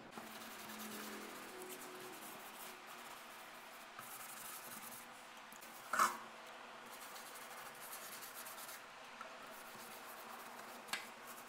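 Faint, steady scratchy rubbing of a paintbrush's bristles scrubbing liquid cleaner over hard tile and stainless steel, with a single sharp knock about six seconds in.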